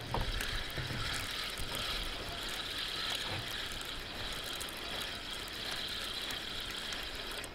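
Fishing reel clicking steadily as a hooked fish is played, with a few low handling thumps in the first second.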